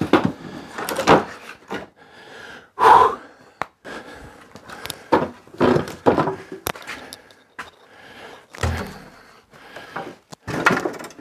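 Irregular wooden knocks and thuds, a dozen or so, from pallet boards being handled and set down. The loudest knock comes about 3 seconds in, and a deep thud comes near the end.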